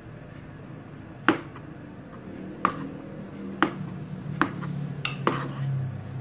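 Kitchen knife cutting mushrooms on a plastic cutting board: about six sharp knocks of the blade against the board, spaced irregularly, starting about a second in.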